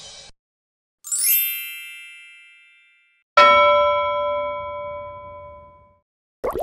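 Two separate bell-like sound effects: about a second in, a bright, high shimmering chime that slides down at its start and fades out, then past the middle a single struck ding with a few clear tones that rings out and fades over about two and a half seconds.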